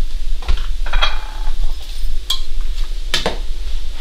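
A serving utensil scraping and clinking against a frying pan and a plate as stir fry is dished out: several sharp clinks, some briefly ringing, over a steady low hum.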